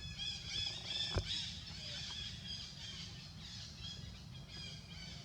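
High-pitched animal chirping calls in quick succession, strongest in the first two seconds and then fainter, over a low steady rumble; a single sharp click about a second in.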